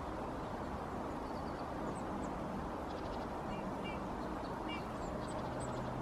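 Short, high chirps of small songbirds, scattered and sometimes in quick pairs, from about a second in, over a steady low background rumble.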